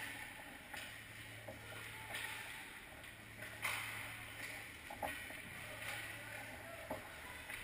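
Hockey skates scraping and carving on the ice, with sharp knocks of pucks and sticks about four times, over a steady low hum.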